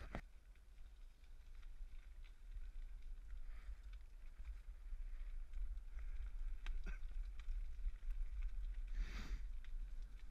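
Bicycle riding over a rough footpath: a steady low rumble of tyres and wind on the camera, with scattered small clicks and rattles, and a short whoosh about nine seconds in.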